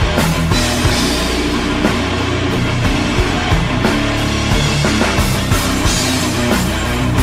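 Background rock music with a steady drum beat and loud guitars.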